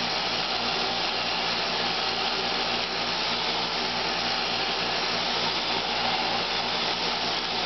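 Roomba robot vacuum running as it drives in circles, its fan and brushes making a steady whirr with a regular low pulsing underneath.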